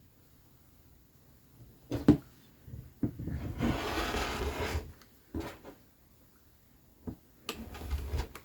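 Fabric and cutting tools being handled on a worktable: a few sharp knocks, and a rustling, sliding noise lasting about two seconds in the middle.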